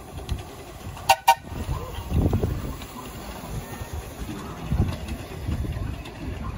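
A miniature railway locomotive sounds two short toots in quick succession about a second in, then the train rumbles along the track.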